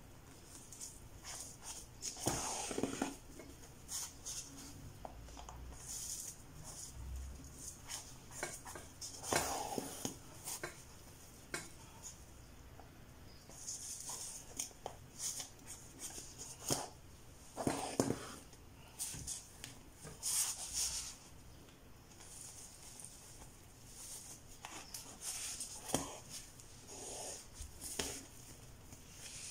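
Rustling and scratching from hand-sewing curly hair wefts onto a wig cap: needle and thread pulled through the cap and hair in short, irregular strokes, with a few fuller handling sounds now and then.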